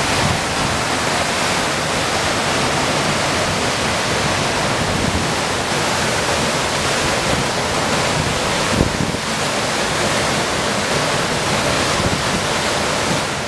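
Steady rush of hurricane-force wind and fast-flowing floodwater churning past, with wind buffeting the microphone.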